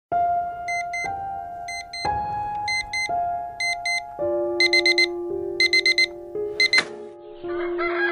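Alarm clock beeping, first in pairs and then in quicker groups of four, over soft sustained background music. The beeping stops with a sharp knock about seven seconds in.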